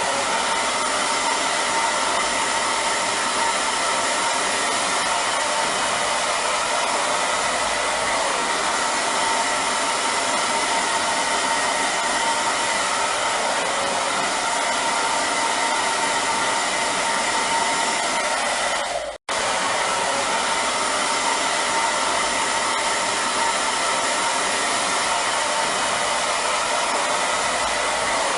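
Hair dryer running steadily, a constant rush of air with a faint motor whine. The sound cuts out for an instant about 19 seconds in.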